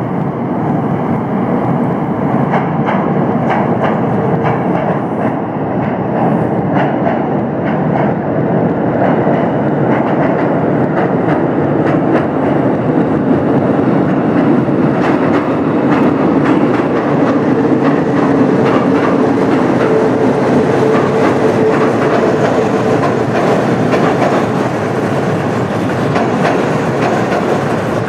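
Train running on rails: a steady, loud rumble with a rapid, irregular clatter of wheels over the track, and a faint steady whine held for several seconds past the middle.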